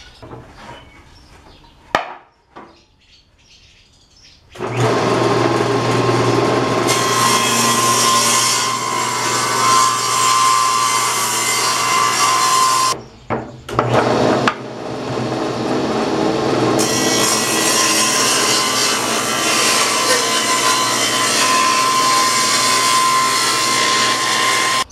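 Table saw running and ripping 1x12 boards to width, a loud steady whine with the blade cutting through the wood. The saw comes in about four and a half seconds in and breaks off briefly about halfway through before running again.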